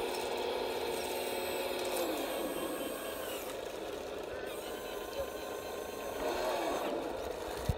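Electric drive motors and gearing of a radio-controlled Cat D10T model bulldozer whining as it crawls through sand, the pitch falling as it slows about two seconds in.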